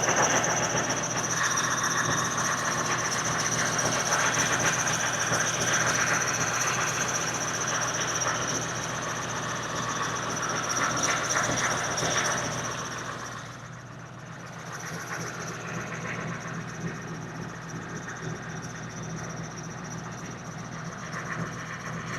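HMMWV (Humvee) V8 diesel engine running as the truck drives, with a steady high whine over the engine noise. The sound eases off about 13 seconds in.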